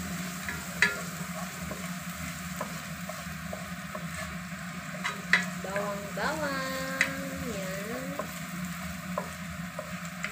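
Minced garlic sizzling in hot oil in a nonstick pan as it is stirred with a wooden spatula, with a few sharp taps of the spatula against the pan.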